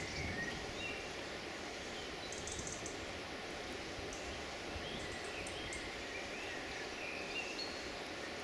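Wild birds calling with short, scattered chirps and whistles over a steady background hiss, with a few brief runs of rapid high-pitched ticking.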